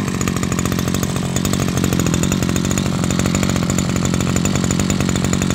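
Maruyama BigM 32cc two-stroke brush cutter engine running steadily at idle just after a pull start, its throttle cable not yet connected.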